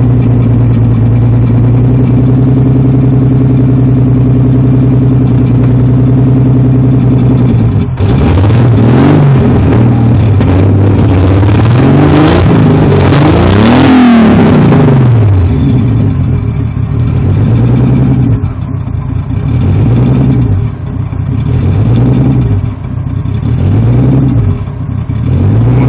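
Turbocharged BMW S52 inline-six idling with an audible misfire, then revved up and down several times from about eight seconds in, the highest rev around fourteen seconds. It finishes with about five short throttle blips.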